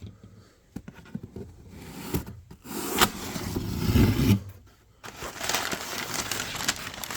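Cardboard shipping box being opened by hand: flaps scraping and tearing, with a few low thuds as the box is handled. From about five seconds in, packing material crinkles as it is pulled out.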